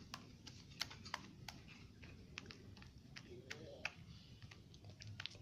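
Slime being squeezed and worked by hand, giving a faint run of irregular sharp clicks and pops.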